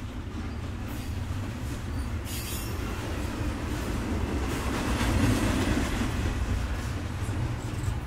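A train passing at close range, its cars rolling over the rails with a steady low rumble that grows louder toward the middle. There is a brief high-pitched sound about two seconds in.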